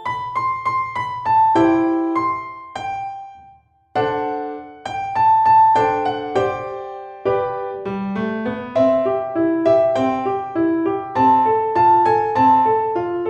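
Background music: a piano-like keyboard playing a melody of struck, decaying notes over a low repeating pulse. It breaks off briefly for a near-silent gap about three and a half seconds in, then resumes.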